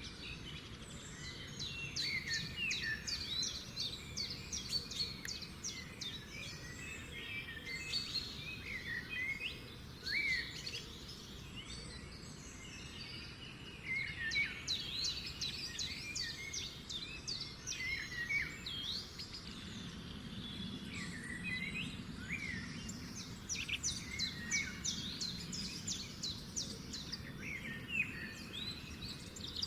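Several garden birds singing together in a morning chorus: overlapping chirps, whistles and rapid trills, over a faint steady low background noise.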